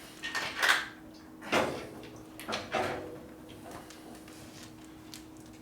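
A few short knocks and scrapes of objects being handled, clustered in the first three seconds and then fading to a quieter stretch, over a steady low hum.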